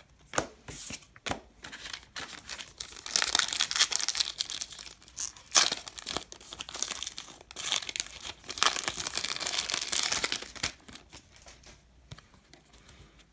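Foil wrapper of a Panini Diamond Kings baseball card pack being torn open and crinkled by hand, in uneven rustling bursts that die away about two seconds before the end.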